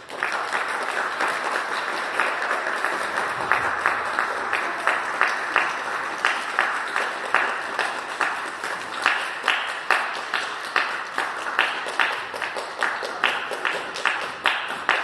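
An audience applauding, breaking out all at once and holding steady. From about halfway, single claps close by stand out sharply, about two to three a second.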